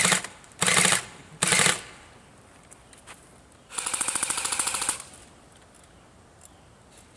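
Mounted airsoft gun firing three short, loud bursts of rapid automatic fire in the first two seconds. Then, nearly four seconds in, there is one quieter burst of fast, even rapid fire lasting a little over a second.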